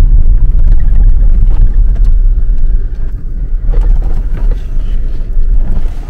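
A Jeep driving over a rough desert dirt track, heard from inside the cabin: a loud, heavy, steady rumble with scattered knocks and rattles.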